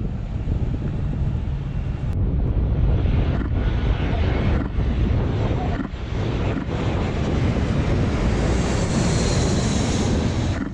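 Jet airliner on landing approach passing low overhead: a steady engine rush that grows louder about two seconds in, with a high turbine whine near the end. Wind buffets the microphone.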